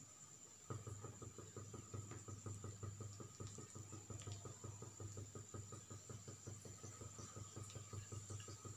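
A low steady electrical hum with a fast, even pulsing, switching on abruptly under a second in, like a small motor or appliance starting up.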